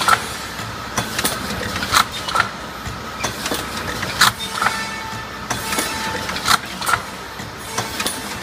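High-speed K-cup filling and sealing machine running: a repeating machine cycle of sharp clicks and knocks, about two a second, over a steady mechanical hum.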